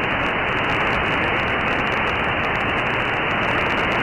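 Steady, loud hiss of radio static from a CB receiver, with no voice on the channel.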